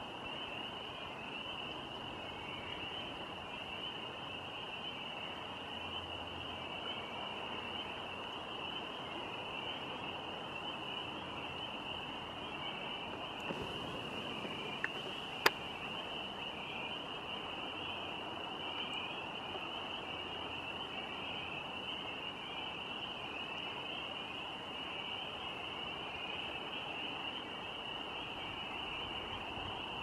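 Steady rush of flowing river water under a continuous high-pitched chorus, with a couple of sharp clicks about halfway through.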